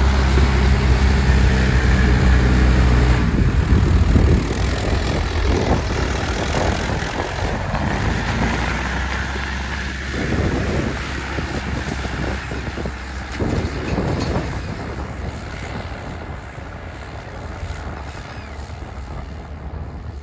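Farm tractor's diesel engine pulling a disc harrow through dry, cloddy soil: a steady engine note loud for the first few seconds as it passes close, then fading into a rough rumble as the tractor moves away.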